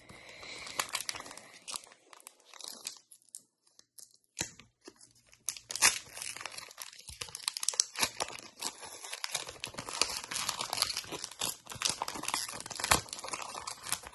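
Foil wrapper of a Pokémon trading-card booster pack being crinkled and torn open by hand: irregular crackling and tearing, with a short lull about three seconds in and denser crinkling through the second half.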